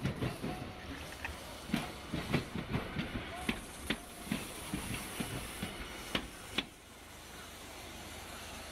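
Hiroshima Electric Railway 1000-series (Green Mover LEX) low-floor tram passing close by, its wheels knocking irregularly over the rail joints. The clatter stops about six and a half seconds in, leaving a steady background noise.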